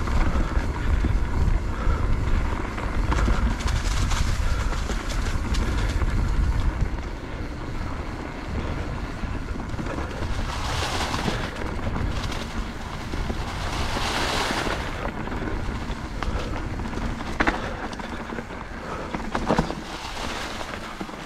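Mountain bike being ridden on a dirt trail: wind buffets the camera microphone with a heavy rumble that eases about seven seconds in, then come two hissing rushes of trail noise and a few sharp knocks and rattles from the bike late on.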